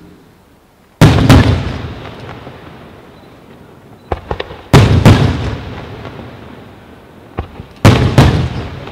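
Aerial firework shells bursting in three pairs of loud bangs about three and a half seconds apart, each pair followed by a rumble that slowly fades. Lighter pops come just before the second and third pairs.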